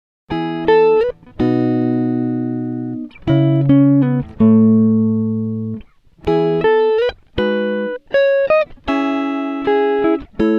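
Background music: a plucked guitar melody played in short phrases with brief gaps between them.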